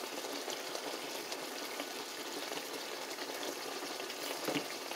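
Pork steaks frying in melted butter and lemon juice in a pan, a steady sizzle and bubbling of the fat. A faint tap comes near the end.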